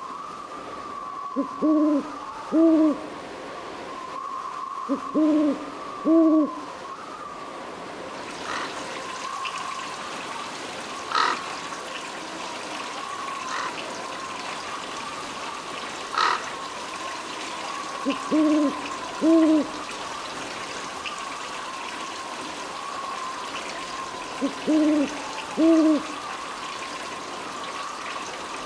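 Owl hooting: four bouts of two or three low hoots, several seconds apart. Under them runs a steady high-pitched tone with a faint hiss, and two or three sharp clicks fall in the middle.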